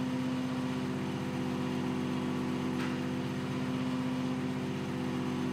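Forklift engine idling steadily, a constant even hum.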